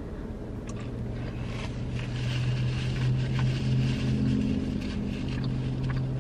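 A vehicle's engine running with a steady low hum that grows louder midway and eases off near the end, with a few faint chewing clicks.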